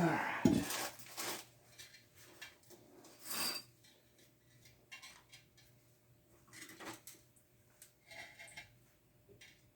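Metal knocks and scraping as a flat belt pulley is worked off a planer's input shaft: a few sharp knocks in the first second or so, a longer scrape about three and a half seconds in, then faint clicks of handling.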